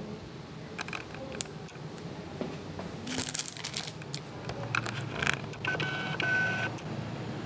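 Shop room sounds: scattered clicks, a brief rustle about three seconds in, then several short electronic beeps near the end.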